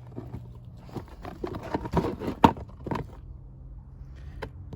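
A series of irregular clicks and knocks from handling tools and parts while working on an ATV engine, loudest about two and a half seconds in, with a faint steady low hum underneath.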